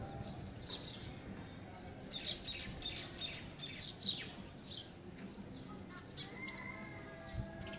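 Small birds chirping in the trees: many short, high chirps in quick succession, some louder ones standing out.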